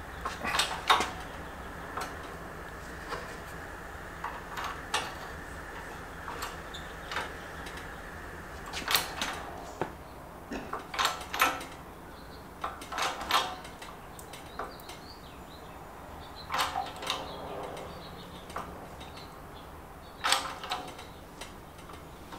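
Hydraulic bottle jack on a shop press being pumped by hand, with scattered short metallic clicks and clanks every second or few, while it presses a wheel bearing out of a rear knuckle. The bearing gives way without much fuss, with no loud bang.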